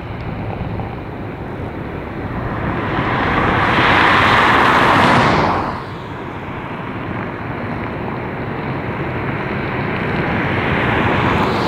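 Boeing 747-400 freighter's four jet engines at takeoff thrust during its takeoff roll: a steady jet noise that swells about four seconds in, drops suddenly just before the middle, then builds again near the end.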